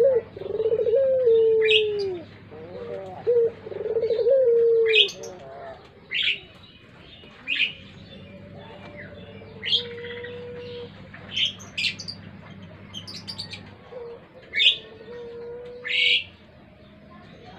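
Puter dove (Barbary dove) of the pelung type cooing: a run of loud coos with falling ends over the first five seconds, then a few shorter, fainter coos. Small birds chirp briefly every second or two throughout.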